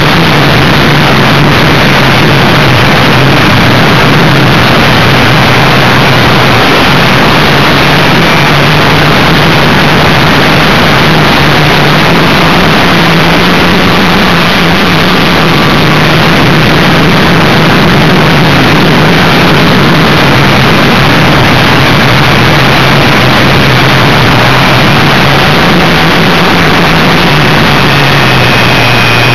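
Multiplex FunJet Ultra model jet's motor and pusher propeller heard from its onboard camera in flight, with heavy wind rush over the airframe. It is a loud, steady drone whose pitch rises a little midway and drops near the end.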